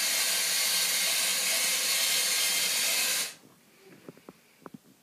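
Steady hiss of water running from a tap, which stops abruptly about three seconds in, leaving a few faint ticks.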